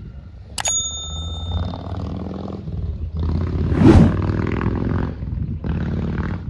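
A short ringing ding about half a second in, then a vehicle engine running and passing close, its pitch sweeping as it goes by and loudest about four seconds in.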